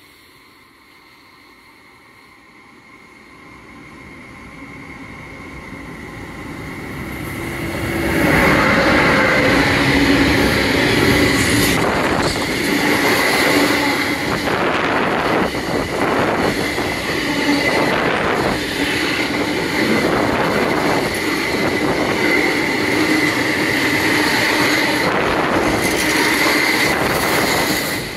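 Freight train of tank wagons hauled by a class 186 Bombardier TRAXX electric locomotive passing. It grows steadily louder over the first eight seconds as it approaches, then the wagons roll by with a steady high-pitched wheel squeal and repeated knocks from the wheels.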